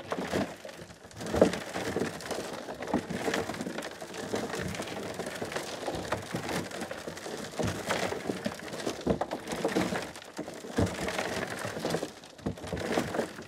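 Black plastic compost tumbler being turned by hand: compost and kitchen scraps tumble and crunch inside the drum, a steady rattling clatter full of small knocks.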